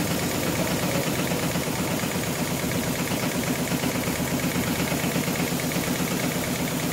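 HighTex GLK700-5030 heavy-duty programmable pattern sewing machine running, its needle stitching through a thick stack of webbing slings as the clamp frame moves the work. The sound is a steady, fast, evenly repeating mechanical chatter.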